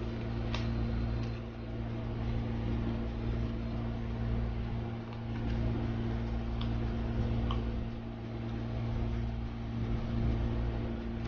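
Steady low mechanical hum of a running machine, with a few faint clicks.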